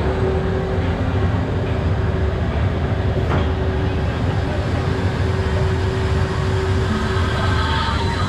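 Icon launched roller coaster with its loaded train waiting on the launch track: a steady low hum with a held mid-pitched tone from the ride's machinery. Near the end, higher tones start to rise as the launch begins.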